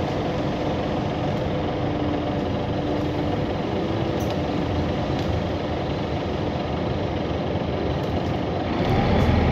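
Van Hool AG300 articulated bus's diesel engine idling steadily while the bus stands, growing louder about nine seconds in.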